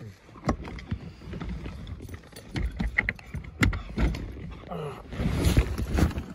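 Irregular knocks, taps and scuffs of a phone microphone being handled against cloth, with a brief falling squeak about five seconds in and denser, louder scuffing near the end.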